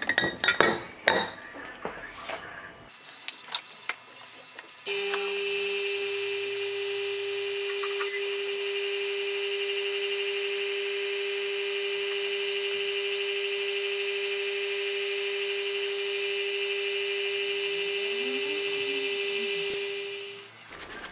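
Small electric vacuum pump running with a steady high-pitched hum while it draws a vacuum on a glass jar of liquid resin to degas it. It starts about five seconds in and fades out just before the end, after a few glass clinks at the start.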